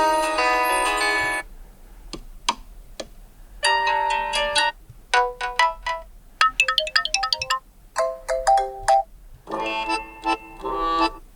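Nubia Red Magic 5S ringtones previewed one after another: about six different short melodies, each cut off after a second or so, with a few clicks between the first and second.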